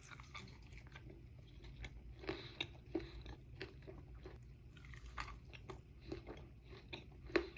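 A person chewing a mouthful of monster cookie dough with oats, M&Ms and chocolate chips close to the microphone: irregular soft smacks and small crunches, the loudest just before the end.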